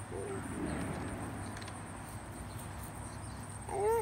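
Quiet outdoor ambience with a steady low hum. A young child makes a brief voice sound at the start and another, louder short voice sound near the end.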